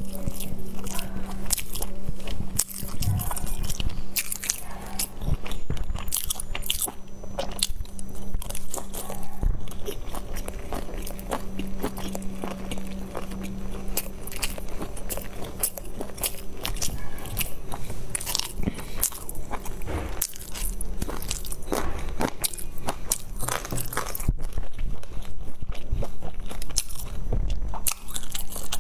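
Close-up mouth sounds of a person biting into and chewing large dumplings: dense, irregular wet clicks and smacks with no pause. A steady low hum runs underneath.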